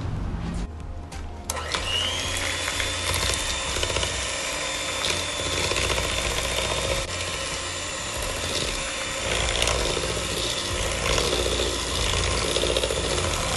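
Electric hand mixer starting up about a second and a half in. Its motor whine rises briefly as it spins up, then runs steadily as the beaters blend an egg into creamed butter and sugar in a metal bowl.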